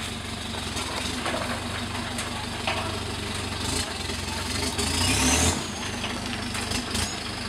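Engine of a lifted 4x4 pickup rock crawling at low speed: a steady low rumble that rises briefly in a rev about five seconds in as it climbs over a boulder.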